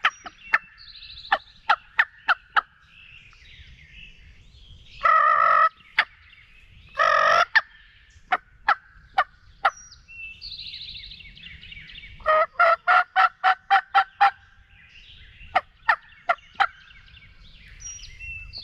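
Turkey yelps and clucks in loud, close bursts: a few sharp single notes near the start, two longer raspy calls around five and seven seconds in, and a quick run of about nine yelps around twelve seconds in. Songbirds chirp faintly between the bursts.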